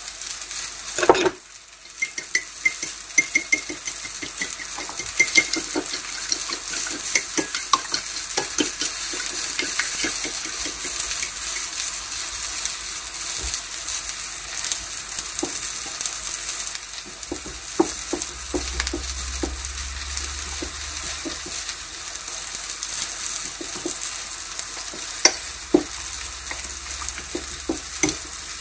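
Eggplant frying in oil, a steady sizzle, while a fork clicks and scrapes against a plate as eggs are beaten and an eggplant slice is coated in them. A louder knock comes about a second in.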